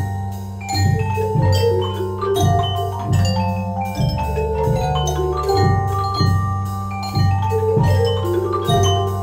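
Orff mallet ensemble of xylophones and glockenspiels playing an instrumental piece, struck notes in a steady rhythm over sustained low bass notes.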